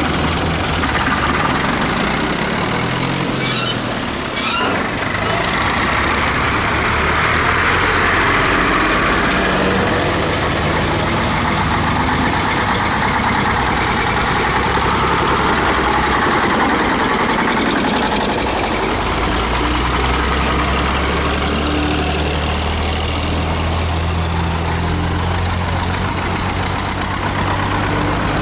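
Tractor engines running steadily, their note shifting as they work, with a couple of short knocks about four seconds in.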